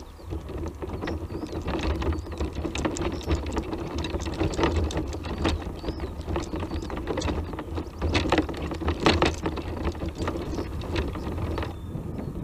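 Tramper off-road mobility scooter climbing a steep stony track: its electric motor hums steadily under load while the tyres crackle and click over loose stones. Wind rumbles on the microphone.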